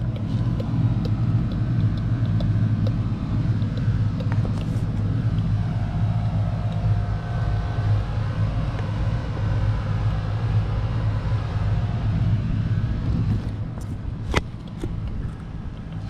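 Outdoor HVAC condenser units running with a steady low machine hum, and a fainter whine in the middle. A single sharp click near the end.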